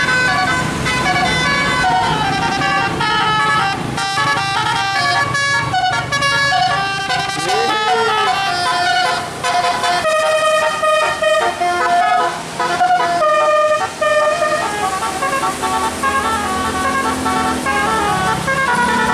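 Bus 'telolet' musical air horn of the Basuri type playing a fast melody, its notes stepping up and down, with a few short breaks about halfway through.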